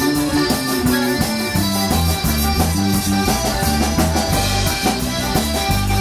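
Live zydeco band playing an instrumental passage: accordion, washboard scraped in a steady fast rhythm, electric bass, drum kit and electric guitar.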